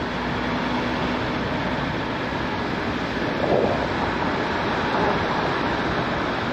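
Steady gusty wind noise buffeting the microphone.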